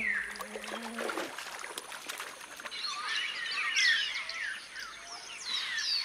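Birds calling in the forest: a single falling whistle at the start, a few scattered clicks, then from about three seconds in a dense chorus of short sweeping whistles and chirps.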